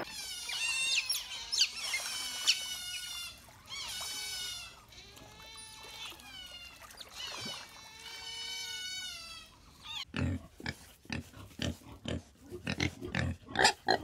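Otters calling in a string of high, wavering chirps and squeals. About ten seconds in, pigs take over with a rapid series of short, low grunts.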